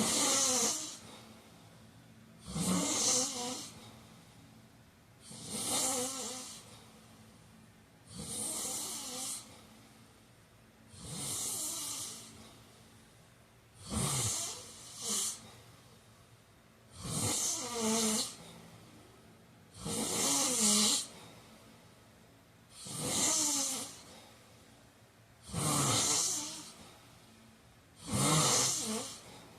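A man snoring in a steady rhythm, one breathy snore about every three seconds, each with a low rattle. One snore near the middle comes as a quick double.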